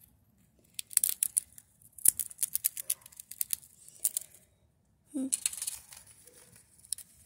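Gray squirrel gnawing and cracking open a peanut shell with its teeth: several bursts of sharp, crisp crackling clicks.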